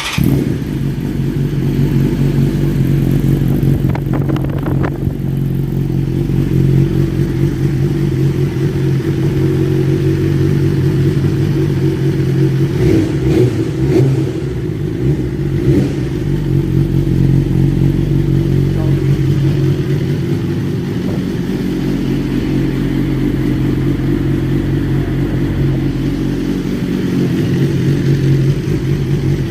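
BMW S1000RR inline-four with an Akrapovic exhaust, starting up and then idling steadily, with a few short throttle blips around the middle.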